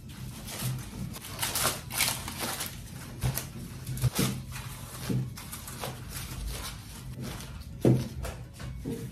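Gloved fingertips pressing grooves into soft barbari bread dough on a parchment-lined tray: a run of soft, irregular pats and taps over a steady low hum.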